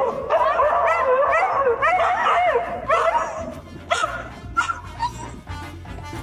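A dog giving long, wavering vocal calls that bend up and down in pitch for about the first three seconds, then only a few short, sharp sounds, over background music.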